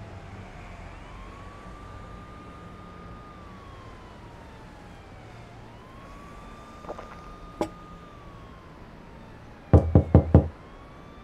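A police siren wailing, slowly rising, holding and falling twice over, above a low steady hum. Two sharp clicks come midway, then four loud knocks on a door in quick succession near the end.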